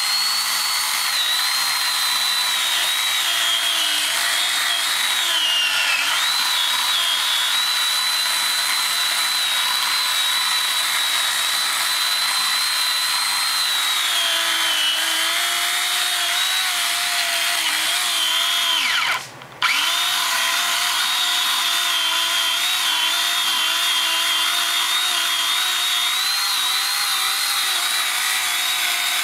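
Chainsaw running hard at high revs, its pitch sagging and recovering now and then as it cuts through small pine trees. About two-thirds of the way through, the sound briefly drops away and then comes straight back.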